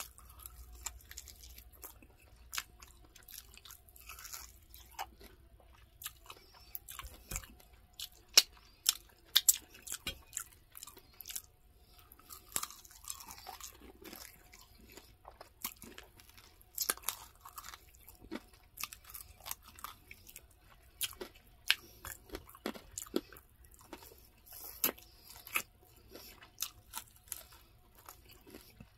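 A person eating home-fried chicken, biting and chewing the crisp coating, with irregular sharp crunches throughout.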